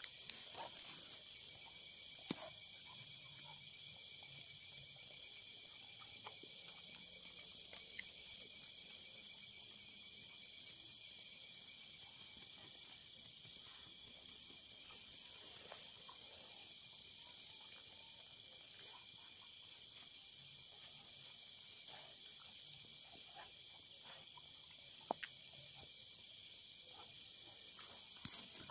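Night insects calling in a steady high chorus that swells rhythmically about once a second, with a few faint sharp clicks.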